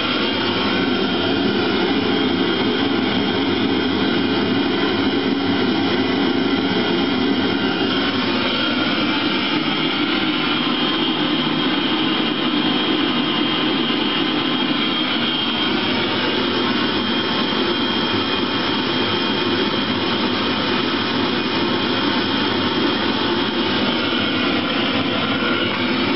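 Eberspächer Hydronic D5WZ diesel water heater running steadily on a bench test: the even rushing sound of its combustion air fan and burner, with a thin high whine over it.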